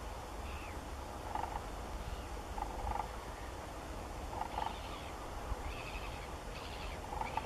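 Short calls from a large flock of waterbirds on open water, coming every second or two over a steady low rumble.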